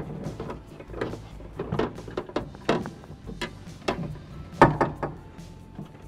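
Irregular clicks, knocks and rattles of a door latch assembly and its linkage rod and cable being handled inside a pickup truck's steel rear door shell, the loudest knock nearly five seconds in.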